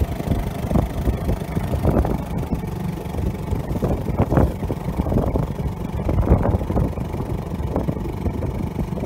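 Small outboard motor running steadily at low speed, pushing a dinghy through choppy water, with irregular splashes of water against the hull.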